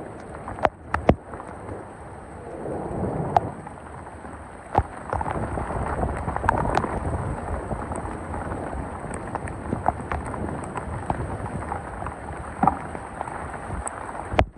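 Thunderstorm with heavy rain: scattered sharp ticks of drops hitting a nearby surface over a steady wash of rain, and a low rumble that swells about two seconds in and grows louder about five seconds in.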